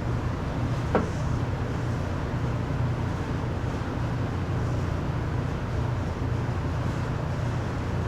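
Steady low mechanical hum of a running machine, with a single light click about a second in.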